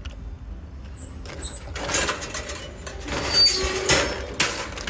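Wire shopping cart being handled at its coin-lock handle: sharp metal clicks and a rattling clatter that start about a second and a half in and are loudest near the end.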